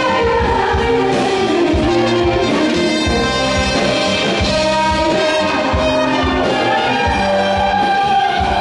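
Instrumental break of a Korean trot song: live trumpet and trombone play the melody over band accompaniment with a steady beat, and no vocal.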